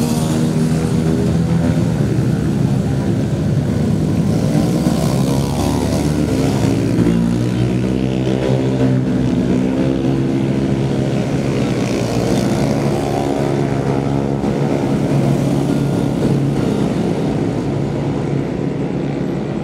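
Several motorcycle engines revving and passing one after another as riders take a corner, their pitch rising and falling over a steady traffic drone.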